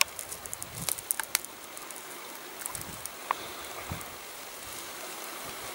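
Rustling and crackling of dry vegetation, with several sharp snaps in the first second and a half and a few more later, over a faint steady hiss.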